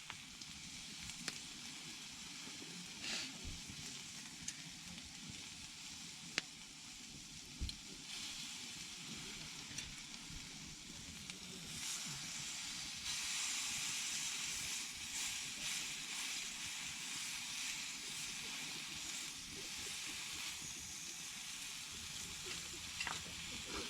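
Food sizzling as it cooks, a steady hiss with scattered small pops and ticks that swells for several seconds about halfway through.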